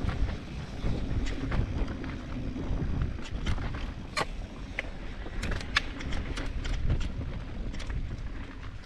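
Mountain bike rolling down a dirt singletrack: a steady low rumble of tyres on the trail and wind buffeting the microphone, with scattered sharp ticks and rattles from the bike, thickest about four to six seconds in.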